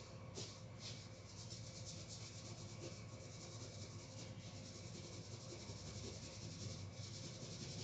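Faint pencil scratching on paper: a few separate short strokes at first, then a steadier run of quick back-and-forth hatching.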